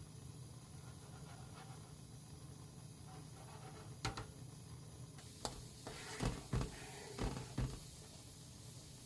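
Kitchen handling noises over a low steady hum: a handful of short light knocks and clacks, as of utensils or containers being set down and moved, coming in a string between about four and eight seconds in.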